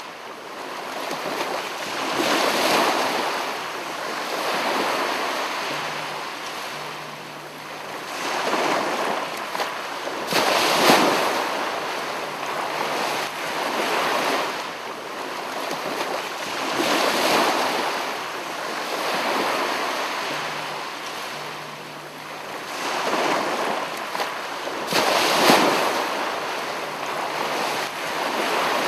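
Sea waves breaking and washing in, surging and receding every few seconds, with two heavier crashes among them.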